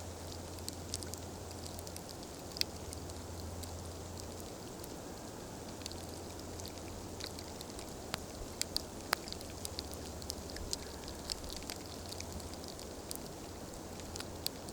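Wood campfire crackling, with many irregular sharp pops, a few louder than the rest, over a steady low rush.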